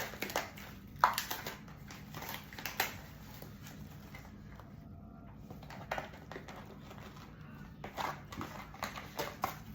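Scattered light clicks, knocks and rustles of hands handling ground chicken and its packaging, with a cluster of them near the end, over a faint steady low hum.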